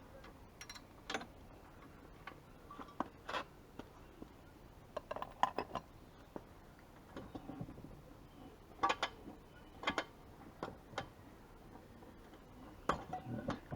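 Ratchet wrench clicking in short, irregular bursts, with metal clinks, as the swing arm pivot bolt nut is tightened with a long ratchet.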